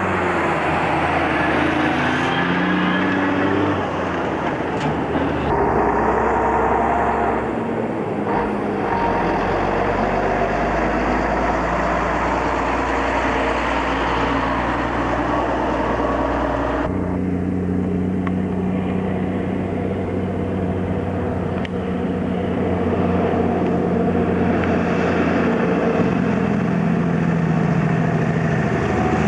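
Heavy diesel logging trucks, loaded with logs, driving past one after another: steady engine note with tyre and road noise. The sound changes abruptly a few times as it switches from one truck to the next.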